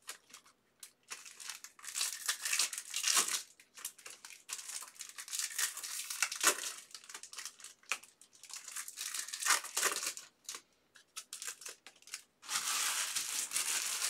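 Foil wrappers of trading-card packs crinkling and tearing as they are handled and opened by hand, in irregular bursts. The crinkling turns continuous near the end.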